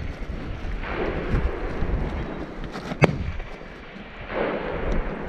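A single rifle shot, a sharp crack about three seconds in, from a Bergara HMR bolt-action rifle in 6.5 Creedmoor.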